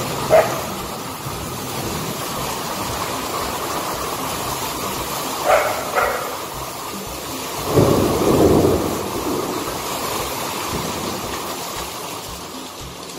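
Heavy rain pouring down steadily in a thunderstorm, with a rumble of thunder about eight seconds in. Three brief sharp sounds come through the rain, one near the start and two about five and six seconds in. The rain grows a little quieter near the end.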